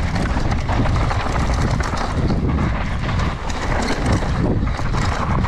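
Mountain bike running fast down a dusty, rocky trail: the bike rattles and clatters over bumps with many quick knocks, over a steady low rush of rolling noise and wind.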